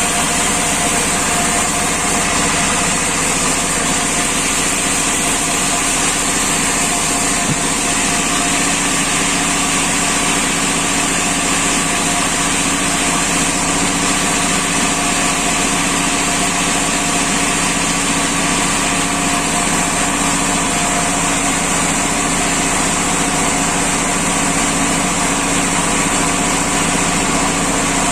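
Sawmill machinery running steadily: a constant engine-driven drone with several steady tones, holding one pitch and level throughout.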